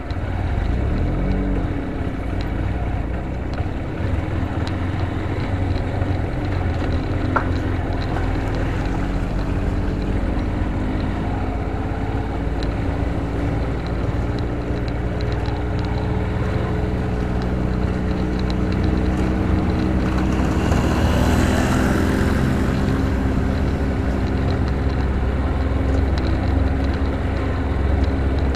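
Motorcycle engine running at low speed, with wind rumbling on the microphone. A brief rush of noise comes about twenty seconds in.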